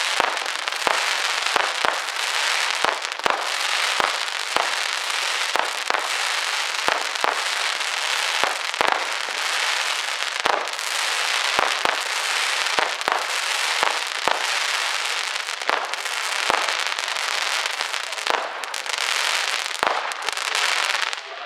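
Consumer fireworks going off: a continuous crackling hiss with frequent sharp bangs, one or two a second, that dies away near the end.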